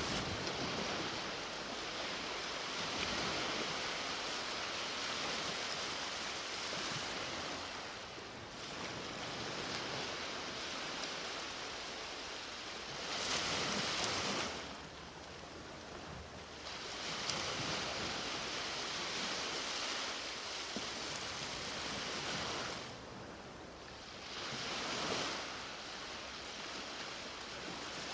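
Ocean waves breaking and washing up the beach, a continuous rush of surf that swells with each wave, most strongly twice, about halfway through and near the end.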